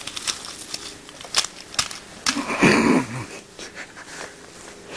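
Plastic toy tank pushed by hand over soil into plastic army men, giving a scatter of small clicks and scrapes. About two and a half seconds in there is a short, louder vocal noise from a person, not words.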